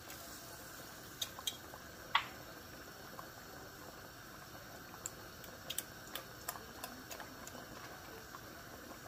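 A few light, irregular clicks and taps of kitchen items being handled, over a faint steady hiss.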